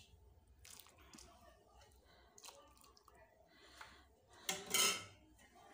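Hot sugar syrup being ladled from a steel pot onto rice flour in a steel tray, with soft drips and splashes and the rustle of hands working the flour. A louder splash-and-scrape comes about four and a half seconds in.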